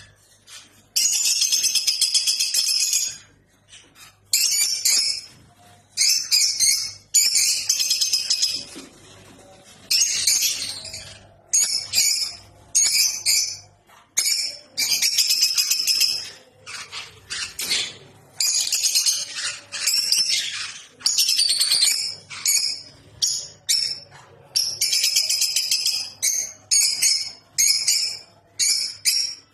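Parrots, likely lovebirds, chattering and screeching in repeated high-pitched bursts, each lasting from half a second to two seconds, with short pauses between.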